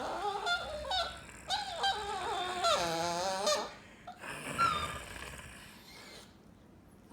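A Chihuahua making high, squeaky, pig-like squeals and whines. There is a run of wavering squeals over the first four seconds, then one shorter squeak near five seconds, after which it goes quiet.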